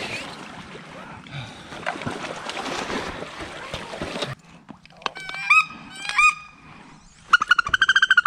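Splashing of wading through shallow swamp water stops about four seconds in. Then come quacking duck calls: two single calls, then a fast run of about ten short quacks near the end.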